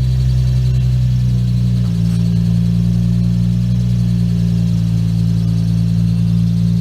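Nissan 350Z's 3.5-litre V6 engine running steadily at low revs, its note shifting slightly about two seconds in.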